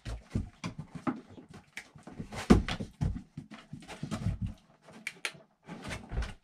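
A Weimaraner moving about on a wooden floor and jumping up onto a sofa: irregular knocks and scuffles, with a loud thump about two and a half seconds in.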